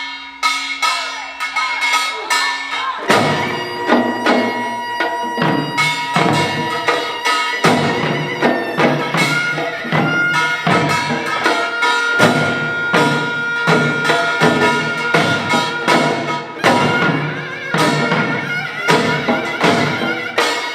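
Korean pungmul ensemble playing: sharp metal gong strikes and drums in a fast, driving rhythm that comes in at full strength about three seconds in, with a high held note over it in the middle.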